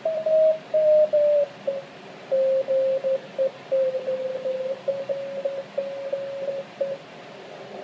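Morse code (CW) signal on the 20-metre band heard through an Icom IC-781 HF transceiver: a single tone keyed on and off in dots and dashes over a faint hiss of band noise. Its pitch drops a little in the first two seconds as the tuning dial is turned, then holds steady.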